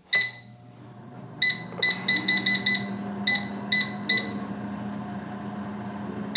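Digital air fryer's touch control panel beeping as its buttons are pressed to set temperature and time: about ten short, high beeps, a quick run of them around two seconds in, the last about four seconds in. A steady low hum of the air fryer's fan running sits underneath, starting with the first beep.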